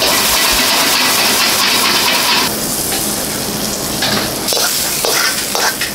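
Stir-frying in a wok over a high gas flame: a loud, steady sizzle and burner roar that drops off about two and a half seconds in. It is followed by a ladle knocking and scraping as the stir-fried offal and vegetable topping is spooned onto a bowl of ramen.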